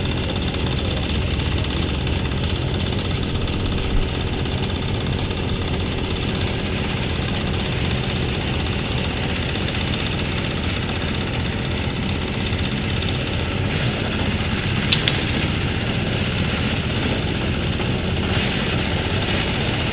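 An engine running steadily, with a brief sharp tick about four seconds in and another about fifteen seconds in.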